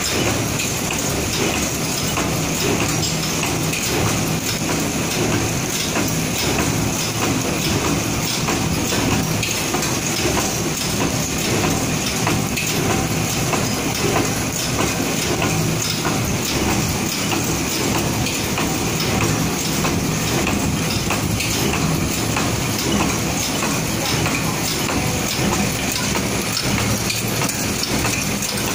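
Wet-wipe folding machine running: a steady, dense mechanical clatter of many fast ticks that does not let up.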